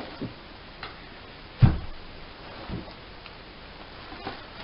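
Scattered knocks and thumps as a plastic-wrapped pro scooter is lifted out of its cardboard shipping box, with one heavier thump a bit under two seconds in and a few light clicks around it.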